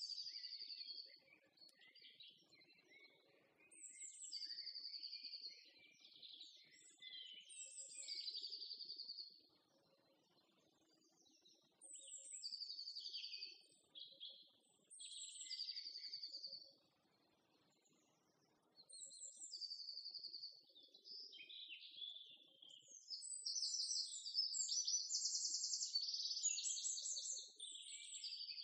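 A songbird singing in repeated phrases of high whistles and trills, a second or two each with short pauses between them, faster and fuller near the end.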